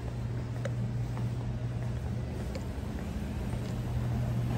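Steady low hum of a moving elevator car, with a few faint clicks.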